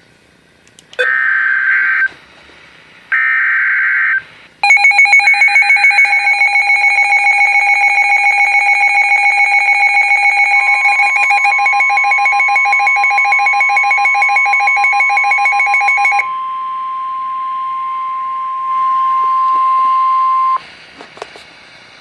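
NOAA Weather Radio receivers sounding an Emergency Alert System alert for a Severe Thunderstorm Warning: two short screeching SAME data bursts, then a receiver's rapid, pulsing alarm beep. About ten seconds in, the steady 1050 Hz warning alarm tone joins it. The beeping stops about sixteen seconds in and the warning tone carries on alone until shortly before the end.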